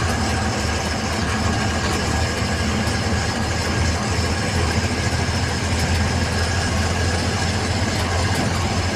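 Heavy truck's diesel engine running steadily, heard from inside the cab as the truck drives.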